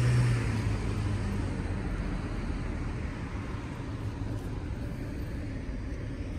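Steady low rumble of street traffic, loudest right at the start.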